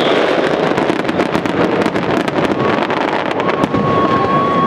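Fireworks display going off in rapid succession: a dense barrage of bangs and crackling over a continuous hiss. A steady whistle joins about two and a half seconds in.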